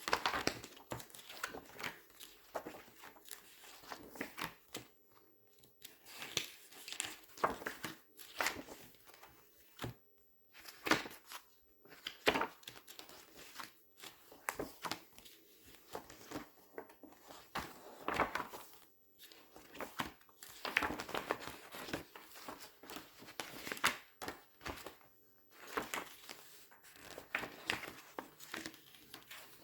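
Glossy paper pages being turned and squeezed close to the microphone, crinkling in irregular bursts with short pauses between them.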